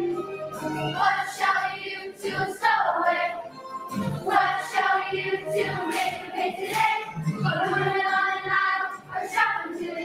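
A group of children singing together over accompanying music.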